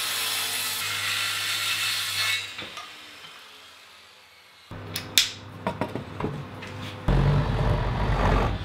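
Makita circular saw cutting through the edge of a glued-up ash tabletop blank, then winding down about two and a half seconds in. A few sharp knocks follow, and a loud low sound comes in about seven seconds in.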